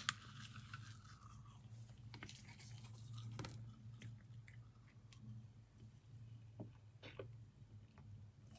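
Ring pull of a drinks can snapping open with a sharp click and a short fizz, followed by faint scattered small clicks over a low steady hum.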